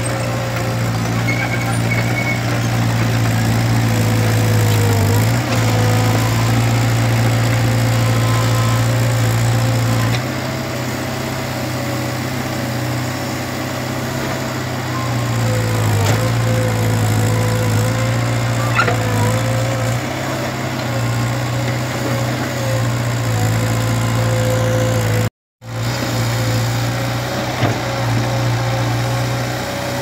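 Kobelco SK03 excavator's diesel engine running steadily as the machine works the soil, with a wavering higher tone over the low engine note. The engine sound eases a little about ten seconds in, picks up again a few seconds later, and cuts out for a moment near the end.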